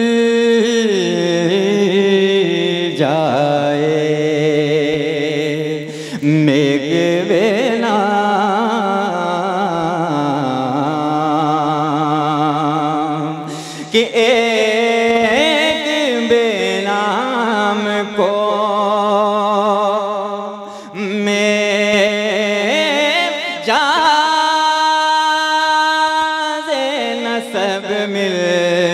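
A man singing a naat into a microphone, drawing out long melismatic notes with a wavering, ornamented pitch and short breaks between phrases.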